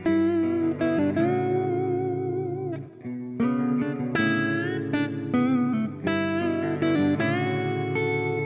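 Background music: a guitar playing sustained melodic notes with vibrato.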